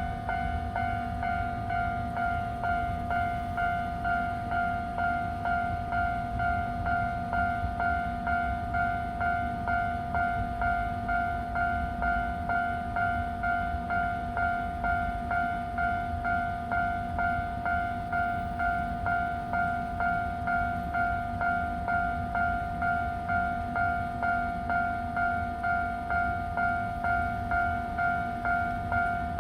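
Japanese railway level-crossing warning bell ringing without pause, an electronic two-tone ring repeating in an even, quick rhythm while the crossing stays closed. A low rumble runs underneath.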